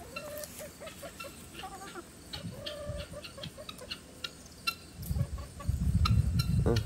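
Chickens clucking in short, repeated notes with higher peeps among them. A louder low rumble on the microphone joins over the last two seconds.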